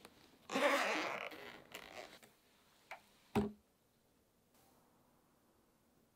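Zipper of a padded nylon carrying case being pulled open in one long scraping run, with a couple of light clicks, then a single thump about three and a half seconds in as the lid is laid open.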